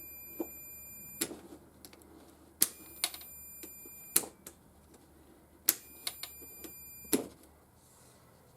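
A switch clicking on and off three times; each time a steady high-pitched electronic beep sounds for about a second and a half and stops with the next click.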